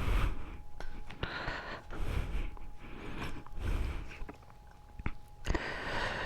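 Close handling noises from a tire plug repair tool: rustling, scraping and a few sharp clicks as the sticky rubber plug strip is adjusted in the eye of the insertion needle.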